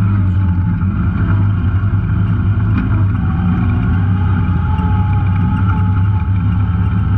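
Off-road vehicle engine running at a steady, even speed while riding a trail.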